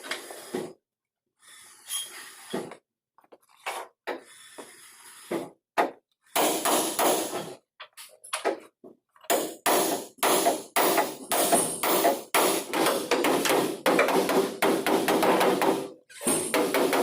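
Hammer blows on the sheet-metal body of a Toyota Hilux under repair: a few scattered knocks at first, then steady hammering at about three strikes a second from about halfway, with a short break near the end.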